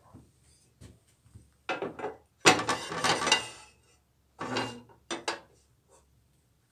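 Metal clanking and scraping as the fence of a combination jointer-planer is slid and set on its table, in several short bursts, the loudest about halfway through.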